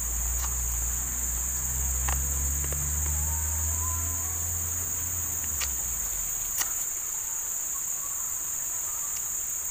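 Steady, high-pitched trilling of an insect chorus that does not let up, with a few soft clicks scattered through it and a low rumble during the first six seconds.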